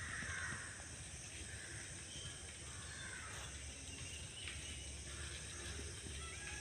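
Faint outdoor ambience: a steady low rumble with a few distant bird calls scattered through it.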